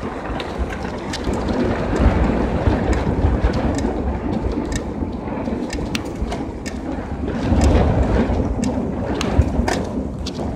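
Wind buffeting the microphone while riding a bicycle along an asphalt road, over the tyres' rolling noise, with scattered light clicks and rattles. The wind swells about two seconds in and again near the end.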